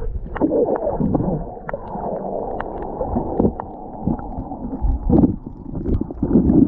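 Muffled underwater sound picked up by a submerged camera: a low rumble of moving water with scattered small clicks and gurgles.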